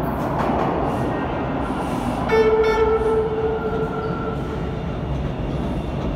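TTC Bombardier T1 subway train rumbling as it runs into the station along the platform, with one horn blast that starts suddenly about two seconds in, is loudest for under a second and then fades.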